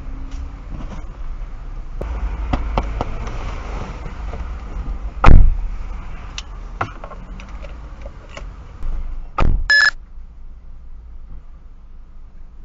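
Knocks and thumps heard from inside a parked car over a low rumble, with one much louder thud about five seconds in and another near the end. A short electronic beep sounds just after the last thump.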